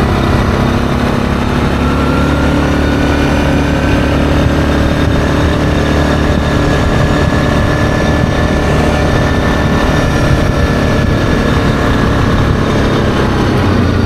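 ATV engine running steadily while riding along a gravel road, with a thin whine that climbs a little in pitch over the first few seconds and then holds.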